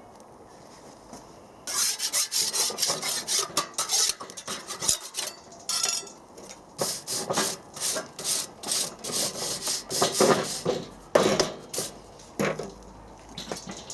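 Rapid rasping scraping strokes, several a second. They start about two seconds in, pause briefly around the middle and stop shortly before the end.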